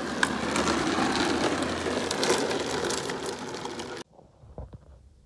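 Hard plastic wheels of a child's foot-powered ride-on toy car rolling and rattling over brick pavers, a gritty clatter full of small clicks. It cuts off suddenly about four seconds in, leaving faint room sound with a few soft knocks.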